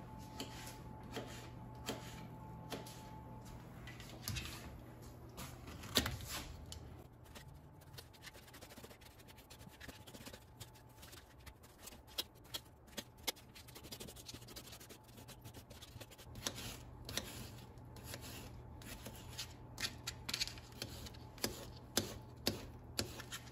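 Kitchen knife slicing fresh pears and knocking on a plastic cutting board: soft, irregular taps and cuts, coming closer together in the last several seconds.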